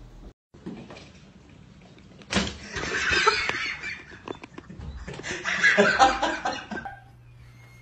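A person laughing in two bouts, breathy and pulsing, the second starting about five seconds in.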